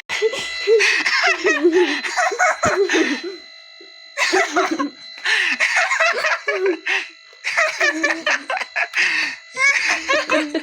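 High-pitched cartoonish voices babbling and laughing in several bursts, over a steady electronic tone held underneath.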